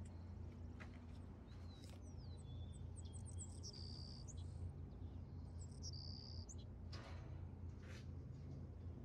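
Faint steady low hum, with birds chirping in a stretch of a few seconds in the middle and a few short clicks.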